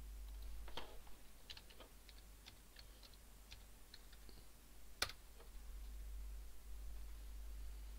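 Computer keyboard typing: a quick, uneven run of light key clicks, then one sharper, louder click about five seconds in. A low steady hum runs underneath.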